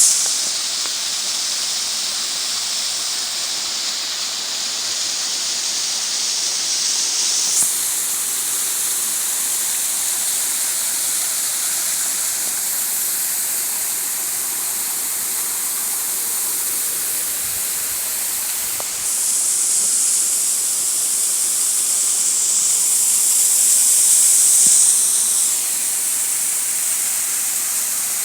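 Waterfall pouring, a steady rushing hiss of falling water. It shifts in tone about a quarter of the way in and grows a little louder past the middle before settling back.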